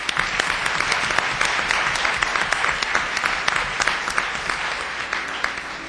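Audience applauding: many hands clapping in a dense, even patter that slowly dies down near the end.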